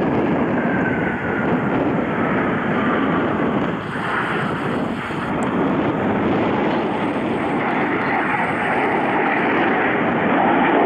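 Single-engine KAI T-50B jets, each with a turbofan, flying past in formation: a steady rushing jet roar with a faint whine that falls in pitch over the first few seconds, growing a little louder near the end.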